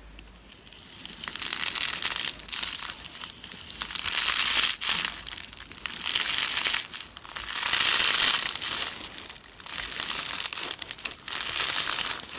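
Slime being squeezed and worked by hand, making a crinkling, crackling sound in about six swells of a second or two each.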